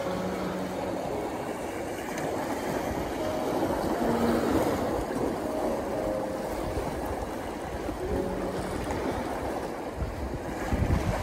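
Sea waves washing and splashing over the rocks of a rocky shoreline, a steady rush of water. Near the end, wind starts buffeting the microphone.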